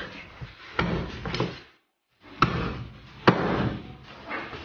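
Cleaver chopping through a raw whole chicken on a wooden cutting board: several sharp chops, the loudest about three seconds in.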